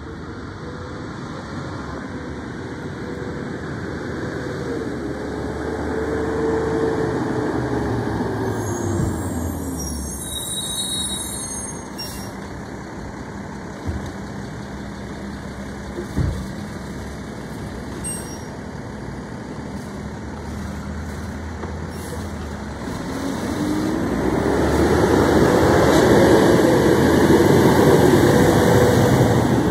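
Mack garbage truck's engine running, revving up and easing off twice, with a few sharp clicks and knocks in between. It is loudest near the end as the truck drives up close.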